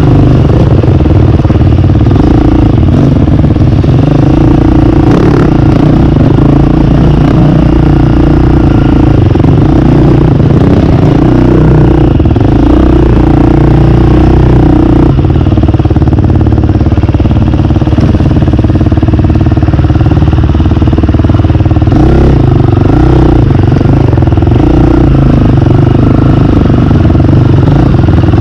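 KTM dirt bike engine running at low speed on a wooded trail, its pitch wavering up and down as the throttle is worked.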